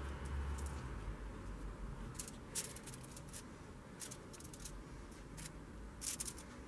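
Paper napkin rubbed over crumpled aluminium foil: scattered dry crinkles and scratches in short clusters, the sharpest a little past two seconds in and again near the end.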